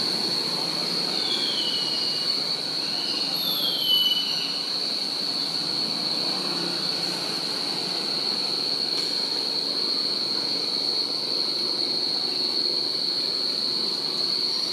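Steady high-pitched whine of cicadas with no break. Two short falling squeals cut in about one second in and again around four seconds in.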